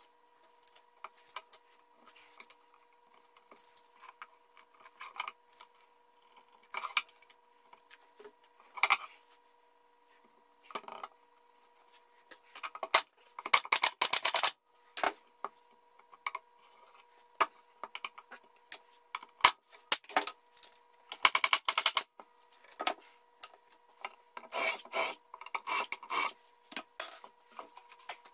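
Pneumatic air stapler firing staples into the boards of a wooden pallet in several quick runs of shots, with knocks and scrapes of the wooden parts being moved on the bench in between.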